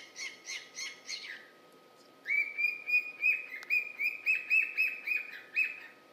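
Pet cockatiel chirping in quick repeated runs. A series of about three chirps a second fades out a little over a second in, and after a short pause a louder run of about four chirps a second follows until near the end.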